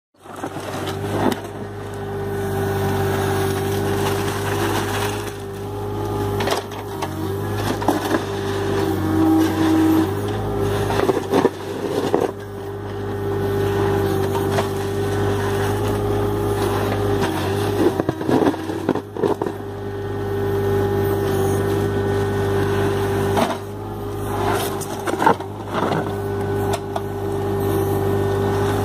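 Mini excavator's diesel engine running steadily under load, with a steady whine over it, as its bucket churns and scrapes through concrete mix in a wooden mixing bin, giving scattered knocks and scrapes.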